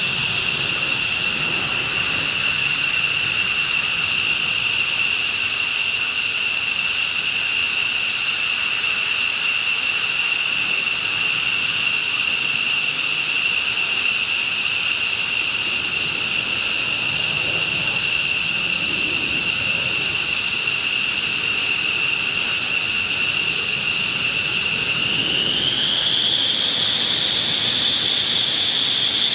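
Jet turbine engine running with a steady high whine over a rushing hiss; near the end the whine rises in pitch as the engine spools up.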